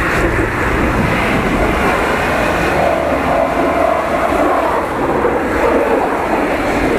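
Mitsubishi L200 pickup's engine revving hard under load as it climbs a snowy slope, wheels spinning and throwing snow and slush, with the engine note wavering as it goes.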